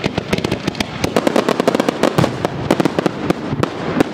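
Aerial fireworks bursting overhead: a loud, dense, rapid crackle of many sharp pops.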